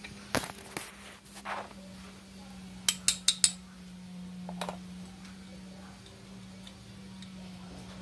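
Small metal clicks and clinks of motorcycle carburetor parts and a screwdriver being handled, with a quick run of four sharp clicks about three seconds in. A steady low hum runs underneath.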